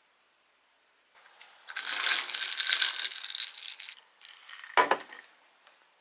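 Boiled egg shell crackling and crunching as it is cracked and peeled by hand, for about three seconds, then one sharper knock near the end.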